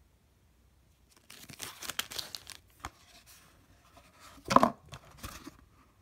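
Product packaging being handled: a crackly crinkling and rustling of a clear plastic bag and a small cardboard box for about a second, then a louder knock about four and a half seconds in, followed by more brief rustling.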